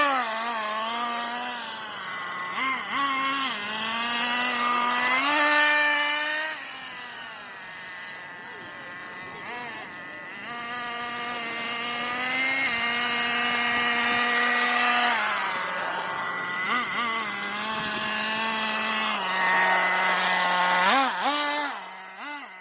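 Tornado S30 buggy's engine running and revving, its pitch repeatedly rising and falling in quick blips and longer held throttle runs.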